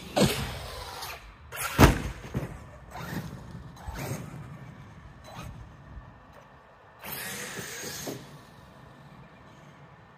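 Traxxas Sledge RC monster truck's brushless electric motor whining up under throttle, then a loud landing impact a little under two seconds in, followed by several smaller thuds as the truck bounces. About seven seconds in, another short burst of rising motor whine.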